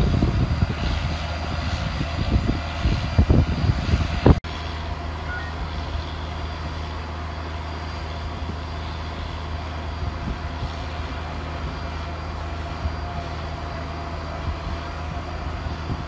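Steady low engine drone. For the first four seconds it is louder and rougher, then a sudden cut leaves an even hum.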